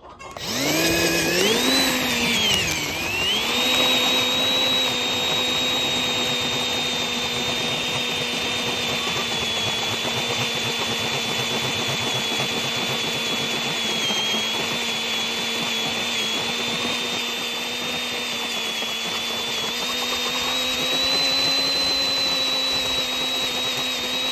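Electric drill boring a half-inch twist bit through a tractor's steel roll bar, enlarging a pilot hole. The motor speeds up, dips about three seconds in as the bit bites, then runs with a steady whine under load.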